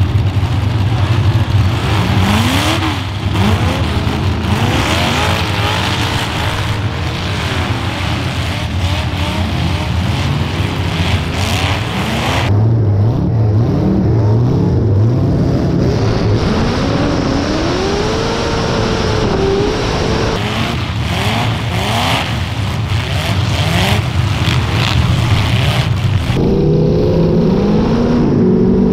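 Several demolition derby cars' engines revving hard at once, their pitches rising and falling over one another, with scattered bangs from hits. The mix of engines changes abruptly a few times.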